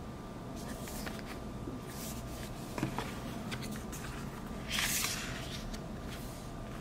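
Hands handling a cardboard album and a paper photo card: soft taps and rubbing, then a brief paper swish about five seconds in as the photo card slides across the album cover. A steady background noise runs underneath.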